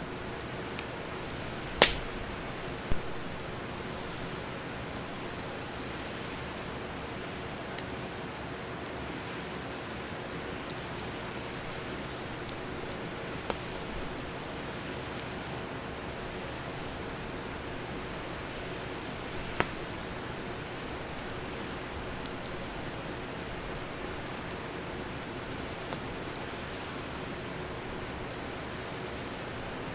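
Wood fire burning with a steady hiss and occasional sharp pops, the loudest about two seconds in and another about twenty seconds in.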